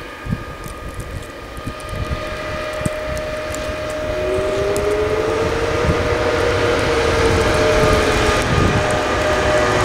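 Traxx E186 electric locomotive (SNCB Série 29) approaching and passing at speed, growing steadily louder. Its whine carries a steady tone, with a second tone that enters about four seconds in, rises, then sinks slowly in pitch as it goes by, over a low rumble of wheels on rail.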